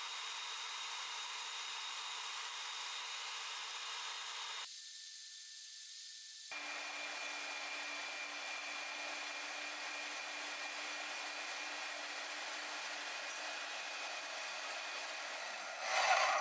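Vertical band saw running and cutting through half-inch square mild steel bar: a steady hiss with a faint whine, which thins out briefly a few seconds in and comes back at a different pitch. A louder surge near the end.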